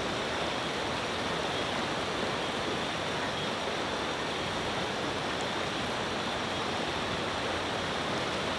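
River water rushing steadily over rocks, an even unbroken hiss.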